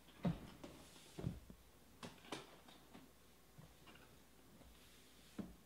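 Sealed cardboard boxes of trading cards being handled and set down on a table: a handful of short, soft knocks with faint handling noise between them.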